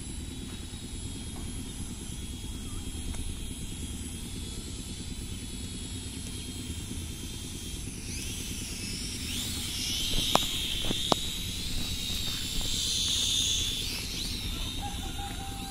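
Small quadcopter drone's propellers whining, faint at first and then louder for several seconds from about halfway through as it comes close, the pitch wavering as it manoeuvres. A steady low rumble lies underneath, and there are two sharp clicks in the middle.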